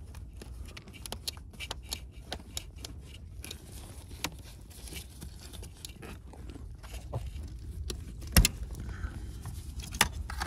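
Clicks and small rattles of plastic wiring connectors and seat-frame parts being handled and unclipped under a car seat, with one sharp click about eight seconds in.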